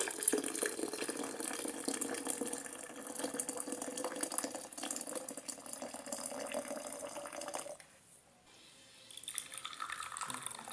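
Hot lemongrass-and-ginger tea being poured from the pot into a teapot: a steady stream of liquid splashing into the vessel. The stream breaks off about eight seconds in and resumes a second and a half later.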